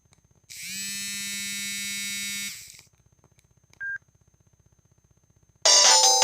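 Samsung SGH-T410 mobile phone's speaker sounding a buzzy electronic tone for about two seconds, then a single short beep, and near the end a loud multi-note tone begins playing.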